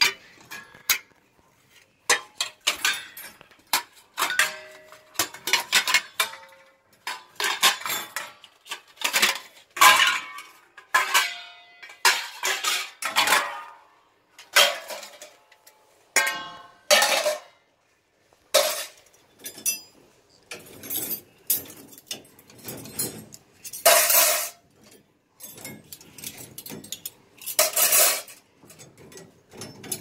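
Stainless steel plates, vessels and utensils clattering and clinking as they are lifted out of a dishwasher's wire racks, in an irregular run of knocks, some of them ringing briefly.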